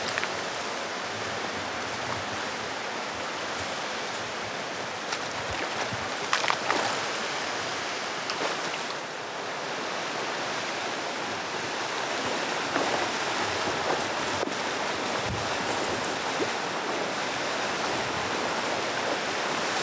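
Steady rush of a fast-flowing river, with now and then the splashing of legs in waders wading through the current.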